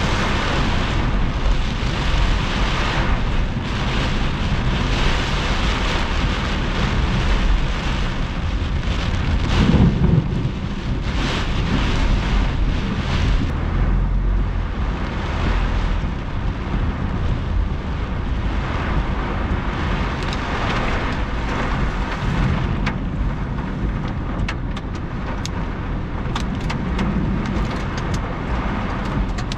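Heavy wind-driven rain beating on a car's windshield and body while driving through a thunderstorm, over a steady low rumble of wind and road noise. Sharp ticks of drops striking the glass thicken near the end.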